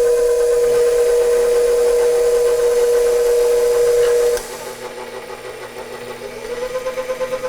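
KitchenAid stand mixer motor running with a steady whine that cuts off about four and a half seconds in. Near the end a mixer motor spins up again, its whine rising in pitch with a pulsing beat.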